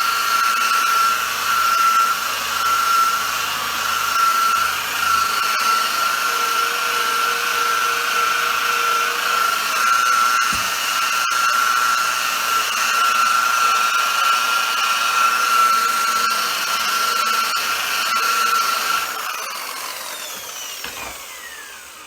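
Variable-speed electric buffer with a wool pad running on speed 3, with a steady high whine, polishing a plastic headlight lens with heavy-cut compound. Near the end it is switched off and the whine falls away as the pad spins down.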